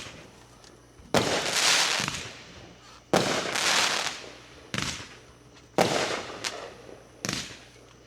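Fireworks going off: six sharp bangs spaced one to two seconds apart, each trailing off in about a second of crackle.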